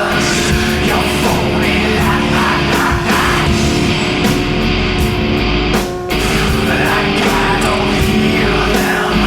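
Heavy rock music with distorted guitar and a steady beat, with a brief drop about six seconds in.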